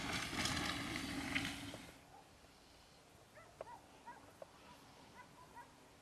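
An animal calling for about the first two seconds, then faint short bird chirps scattered through the rest.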